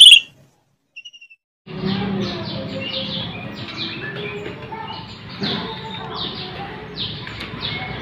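Caged songbirds chirping: many short, falling chirps overlapping and repeating several times a second over a steady low background hum, starting a little under two seconds in after a brief silence.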